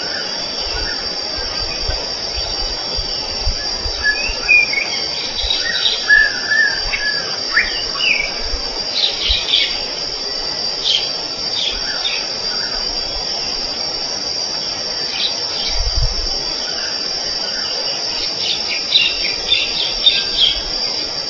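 A steady, high-pitched drone of insects, with birds chirping in short clusters over it, most around the middle and again near the end.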